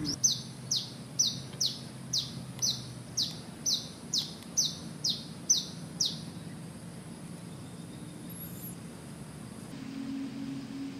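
A bird calling a run of about a dozen short, high notes, each falling sharply in pitch, about two a second, which stop about six seconds in. A faint steady high hiss lies underneath.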